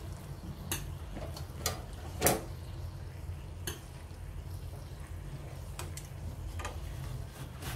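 Metal kitchen tongs clicking and knocking against a frying pan as they grip a banana-leaf-wrapped fish: about six separate sharp clicks, the loudest about two seconds in, over a steady low hum.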